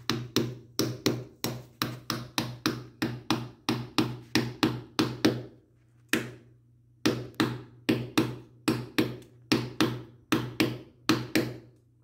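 Hammer driving a nail into a wooden strip inside a wall outlet box: quick, even blows at about three a second, stopping for about a second midway and then going on.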